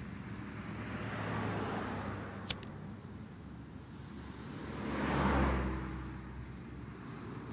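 Street traffic hum, with a car passing about five seconds in, its sound swelling and then fading. A single sharp click sounds about two and a half seconds in.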